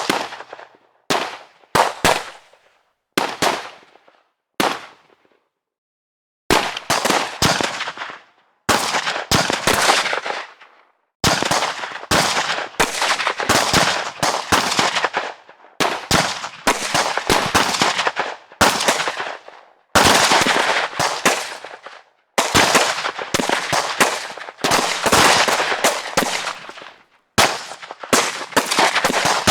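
Gunfire sound effects. A few separate single shots come in the first five seconds. After a short silence come long bursts of rapid fire, many shots a second, separated by brief breaks.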